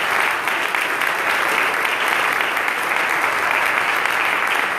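A congregation applauding, many hands clapping in steady, sustained applause.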